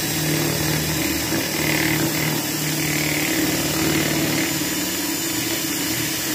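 Cordless drill running steadily at a constant pitch with its bit grinding into the edge of an MDF frame, used as a makeshift router.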